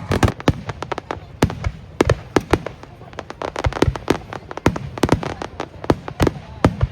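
Aerial fireworks exploding in a rapid, irregular string of sharp bangs and deeper booms, several a second.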